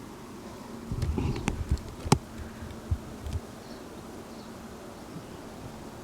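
A buzzing insect, heard as a steady low drone. Between about one and three and a half seconds in come a few low thumps and knocks, the loudest a sharp click about two seconds in.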